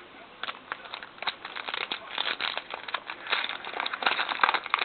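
Crinkling and tearing of a trading-card pack wrapper, a dense run of small crackles that gets busier in the second half, with cards being handled.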